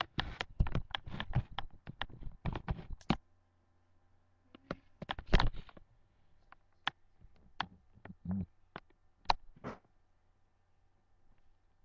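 Handling noise from a moving webcam: a quick run of knocks, rustles and clicks for the first three seconds, then single clicks and taps every second or so.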